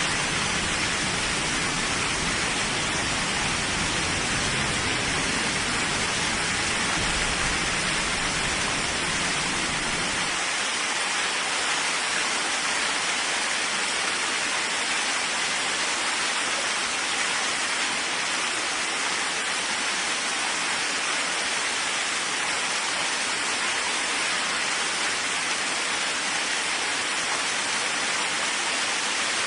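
Steady rain hiss. A low rumble underneath drops out suddenly about ten seconds in.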